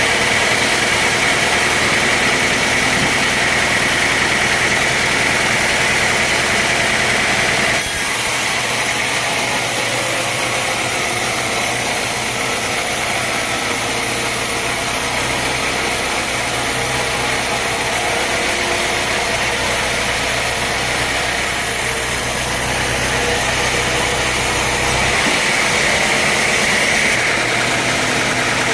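Engine-driven sawmill machinery running steadily. The sound changes abruptly twice, about 8 seconds in and again near the end.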